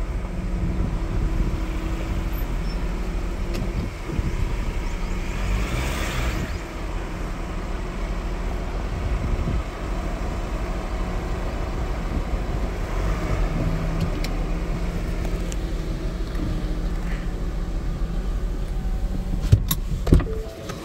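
Vehicle engine and tyre noise heard from inside the cabin while driving over a dirt road, a steady low rumble. Two sharp knocks come near the end.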